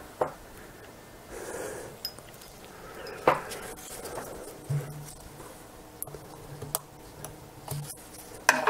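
Handling of a partly disassembled camera lens and small tools on a table: a few sharp little clicks and knocks of plastic and metal parts, the loudest about three seconds in and a quick cluster near the end.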